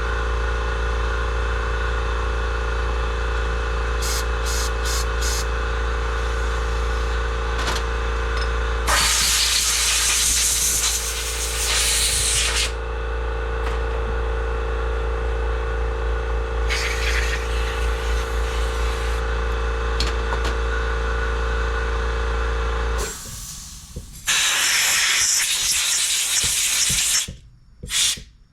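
A steady motor hum runs under three long hissing bursts of spray blown through a carburetor being cleaned; the hum stops suddenly about 23 seconds in, before the last burst.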